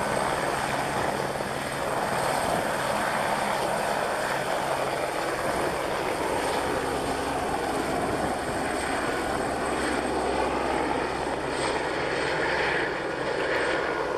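Airbus H125 (AS350 B3e) helicopter running, a steady, continuous turbine-and-rotor noise.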